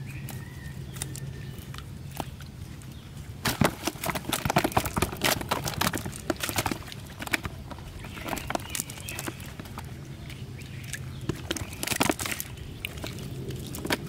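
Live fish flapping and slapping against a wet cast net and a plastic basin as they are picked out of the net, in rapid bursts of wet slaps and rustling, heaviest a few seconds in and again near the end, over a steady low hum.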